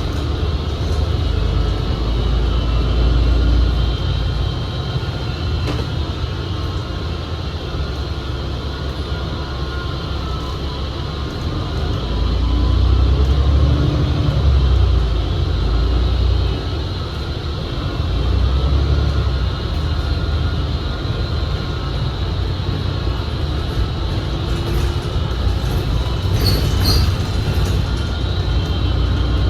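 Inside a 2019 New Flyer XD60 articulated bus under way: a low rumble that swells and eases as the bus pulls and slows, under steady high-pitched tones from the transmission, whose sound is unusual on this bus and all but drowns out the engine. A few short clicks near the end.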